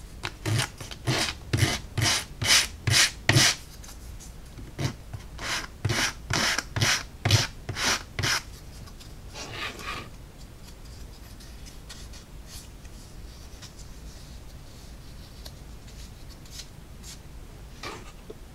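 Emery board sanding the edges of a laser-cut wood piece: short rasping back-and-forth passes, about two a second, in two runs, then one longer stroke about ten seconds in; after that only faint handling noise.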